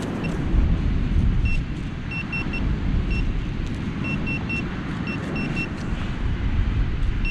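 Wind buffeting the microphone as a steady low rumble, with a metal detector giving short high beeps in quick groups of two or three, repeating several times.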